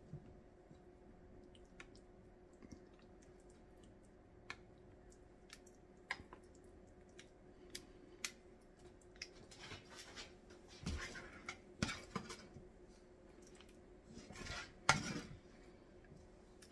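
A serving spoon scraping and clinking against a skillet and a glass baking dish as a thick, creamy turkey and green bean mixture is scooped out and spread. Scattered light clicks and scrapes, busiest around ten to twelve seconds in and again about fifteen seconds in, over a faint steady hum.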